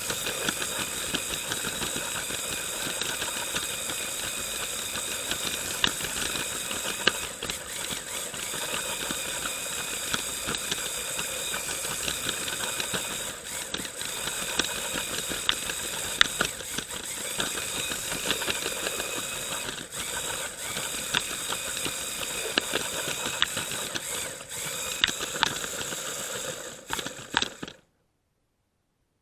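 Lego train's small electric motor and gears whining steadily as it runs along plastic track, with frequent sharp clicks and rattles from the wheels over the track joints, heard from the camera riding on the train. The sound cuts off suddenly near the end.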